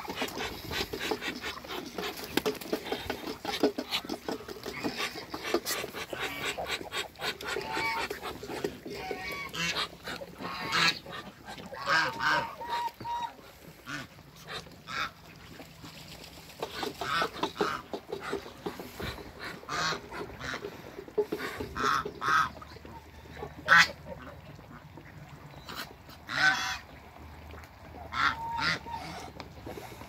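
A backyard flock of domestic ducks and geese calling, honks and quacks overlapping thickly for the first several seconds, then single calls every second or two, one louder call about two thirds of the way through.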